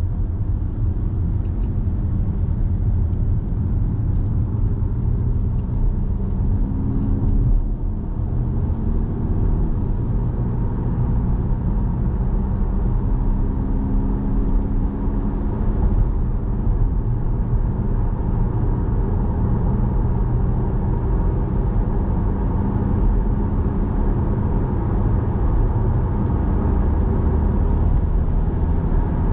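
Car driving along a main road: the steady low rumble of engine and tyres.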